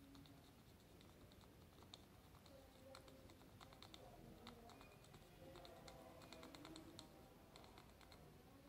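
Faint, irregular small clicks and ticks as a soldering iron tip is drawn along the LCD connector solder pads of a phone circuit board, cleaning off the old solder.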